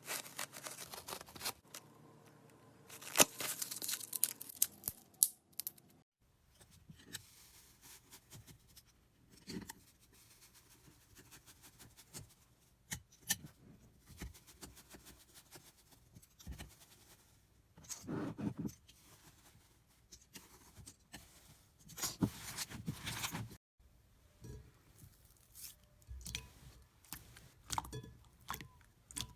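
Slime being pressed, poked and stretched by hand, making crackling, sharp clicks and popping, with louder bursts of crackling a few seconds in, about halfway through and near the end.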